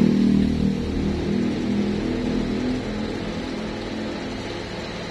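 A motor vehicle engine running, loudest at the start and fading away over about three seconds, over a steady low hum.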